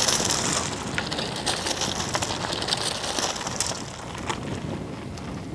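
Mountain bike passing close on an asphalt road: a high tyre hiss scattered with clicks that fades out after about three and a half seconds, over a steady rumble of wind on the microphone.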